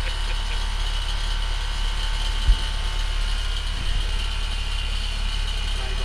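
Air-conditioner condensing unit running during a pump-down, its compressor drawing the refrigerant into the unit while the service valve is being closed: a steady low hum with a high steady whine above it. A single sharp knock about two and a half seconds in.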